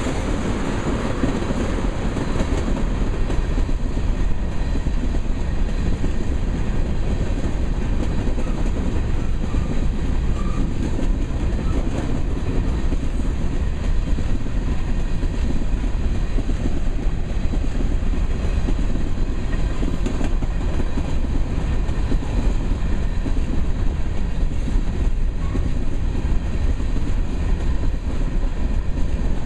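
Freight train's tank cars and covered grain hopper cars rolling past: steel wheels on the rails make a steady, mostly low rolling noise.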